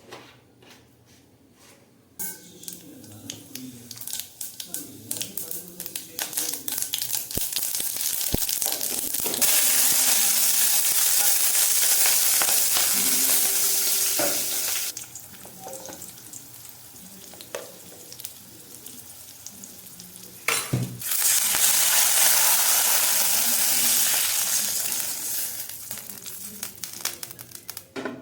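Hot oil frying in a pan. It starts with scattered crackling pops about two seconds in and builds to a loud steady sizzle. The sizzle drops back, then flares up loud again right after a sharp clatter about twenty seconds in, and fades near the end.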